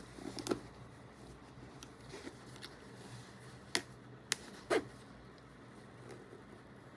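Handling sounds from a bag zipper being tried out: a few sharp clicks and short rasps as the slider is worked, the loudest in the middle. The worn section's teeth still separate behind the slider.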